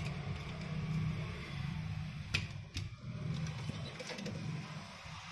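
Two light clicks, about half a second apart, as a smartphone's metal mid-frame is handled and set down on a rubber repair mat, over a low steady background hum.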